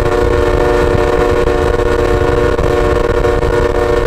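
Canadian Pacific GE ES44AC locomotive's multi-chime air horn sounding one long, steady blast, several notes at once as a chord, over a constant low rumble.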